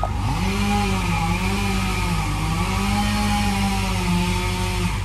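Two-stroke chainsaw revving up and cutting, its pitch dipping and wavering under load, then cutting off sharply near the end. A truck engine runs steadily underneath.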